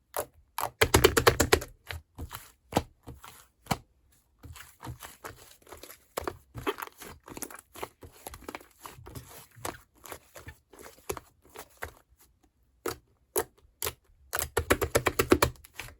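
Slime being squeezed and pressed by hand, making sticky crackling and popping clicks, with two dense runs of rapid pops about a second in and near the end.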